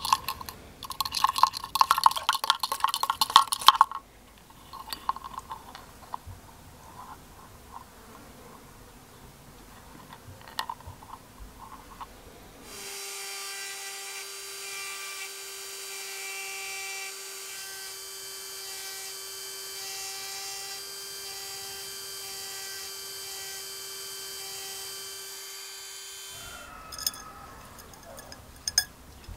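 A hand-held mini drill with a fine engraving bit runs steadily for about fourteen seconds with an even whine, cutting a scale pattern into a metal spoon lure. Before it comes a dense burst of scratchy clicking lasting about three seconds, and near the end a few light clicks.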